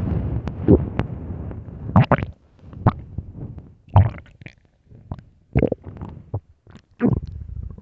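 Loud growling of an empty, hungry human stomach: a drawn-out gurgling rumble over the first two seconds, then short, irregular gurgles and pops about every second or so.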